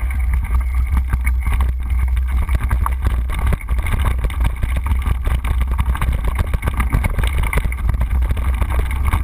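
Wind buffeting the microphone of a camera riding on a moving mountain bike, a heavy low rumble, with a dense, irregular clatter of knocks and rattles from the bike jolting over a rough dirt trail.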